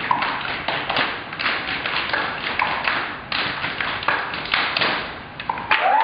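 A group clapping hands and slapping in a quick, uneven run of sharp taps and thumps, several strikes a second, as in a seated clapping game.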